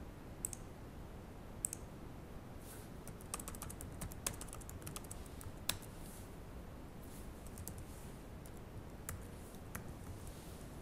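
Computer mouse clicks and keyboard typing: scattered single clicks, with a quick run of keystrokes a few seconds in, over a faint steady room hiss.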